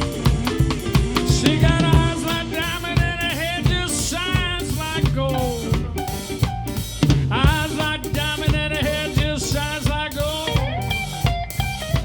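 Live blues band playing an instrumental break: drum kit with snare and bass drum keeping the beat under a lead instrument playing bending notes.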